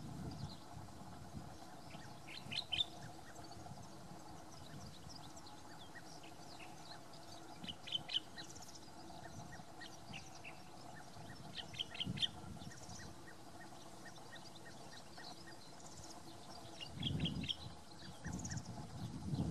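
Common bulbul singing: short phrases of a few quick notes, repeated every four to five seconds, with fainter bird calls between them. A brief low rumble comes near the end.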